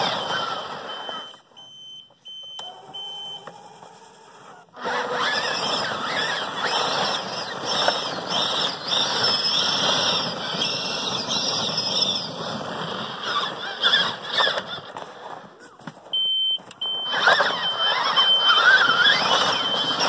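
Electric motors and gearboxes of a 24-volt 4x4 ride-on toy truck whining as it drives and plows snow, the whine wavering as it works. A repeating short high beep sounds at the start and again near the end.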